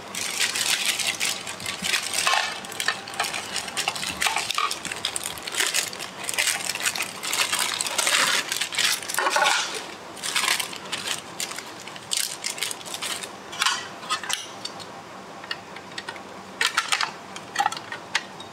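Plastic packaging bags crinkling and rustling as the tower fan's plastic stand pieces are unwrapped by hand, thinning to scattered light clicks of the hard plastic parts being handled in the later part.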